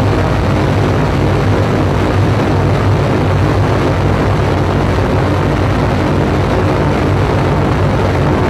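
Loud electronic noise drone from a live sound performance, played over PA speakers: a dense, steady rumbling wash heavy in the low end.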